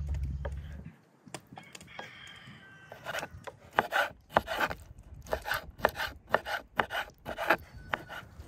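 Kitchen knife chopping raw liver on a wooden cutting board: a steady run of sharp knocks of the blade on the board, about three a second, starting a few seconds in. Before it there is about a second of wind rumble on the microphone.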